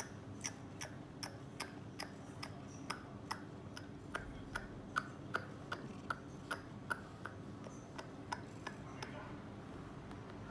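A steady series of sharp ticks, about two and a half a second, some with a short high note; they stop about a second and a half before the end.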